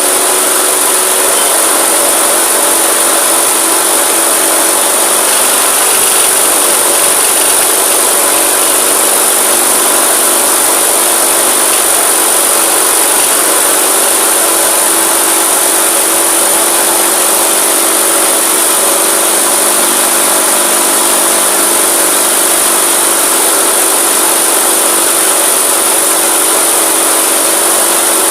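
Masport lawn mower's Briggs & Stratton single-cylinder engine running steadily with its air filter off, set at too high an RPM and being brought down; its pitch drops slightly about a second in.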